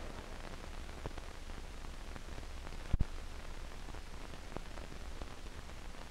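Steady hiss of an old 1960s film soundtrack with faint scattered crackles, and a sharp double click about three seconds in.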